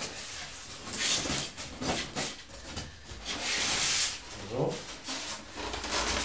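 Polystyrene foam packing blocks rubbing against the inside of a cardboard box as they are lifted out. There are several scraping rubs, the longest and loudest about three and a half seconds in.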